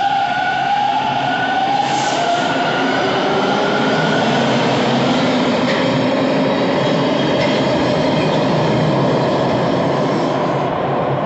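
TTC T1 subway train pulling out and accelerating past the platform. The traction motors' whine rises in pitch over the first couple of seconds, then the steady running noise of steel wheels on the rails takes over. The high end of the noise thins out near the end as the last car clears the station.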